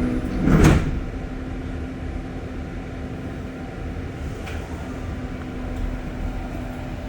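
REM light-metro car running, heard from inside: a steady rumble with a low steady hum. There is a short, loud rushing burst about half a second in.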